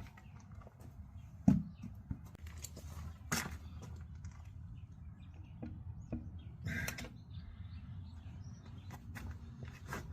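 Scattered knocks and clunks of a cast-iron drill press being handled, with one heavy thump about a second and a half in and a short scraping burst around seven seconds, over a low steady hum.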